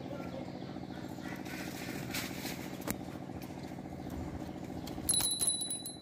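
A steady low machine-like hum, with a single click about three seconds in. About five seconds in, a quick rattle of clicks and a short, clear metallic ring, the loudest sound here.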